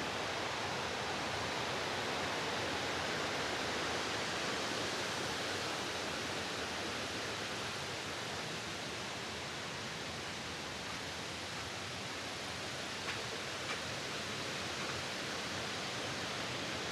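Steady rush of flowing water from a waterfall stream, an even hiss that barely changes, with two faint ticks a little past the middle.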